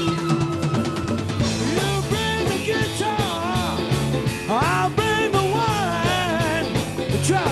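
Live rock band playing: electric guitars, drum kit and keyboards over a steady bass groove, with a lead melody that bends and slides in pitch.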